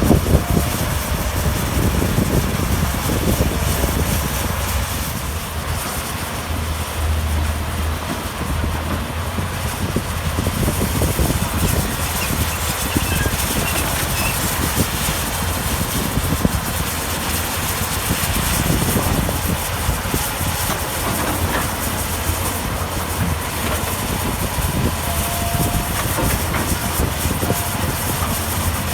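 Heavy diesel earthmoving machinery working. The engines run with a steady low drone under an irregular rumbling clatter.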